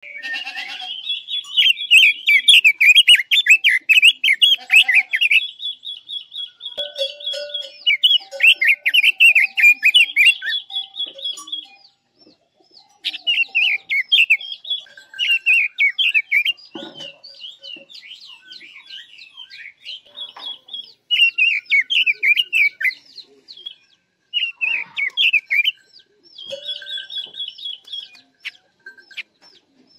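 Caged red-billed leiothrix (sold in Vietnam as the 'Quế Lâm' bird) singing as a decoy: loud, rapid warbled phrases of one to five seconds, alternating with steady high trills and brief pauses.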